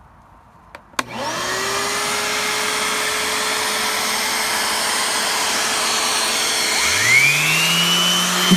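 Shop vac switched on with a click about a second in, its motor spinning up with a rising whine and then running steadily. About seven seconds in, a DeWalt random orbital sander connected to the vac for dust collection starts up and spins up alongside it with its own rising whine.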